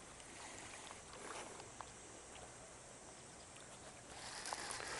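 Faint outdoor background noise with a few small clicks, growing louder in the last second.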